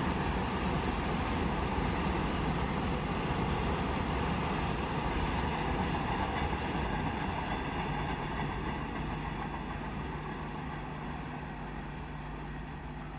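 Double-stack container freight train rolling past, a steady rumble of wheels on rail that fades over the last few seconds as the train pulls away.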